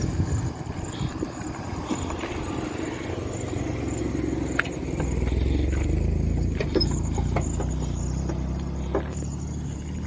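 A motor vehicle's engine rumbling nearby, growing louder about halfway through and then easing off. A few sharp clicks and knocks sound over it.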